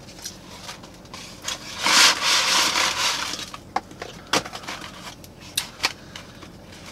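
Paper fries carton and wrapper rustling and crinkling as they are handled, a loud burst about two seconds in that lasts over a second. A few short sharp clicks follow.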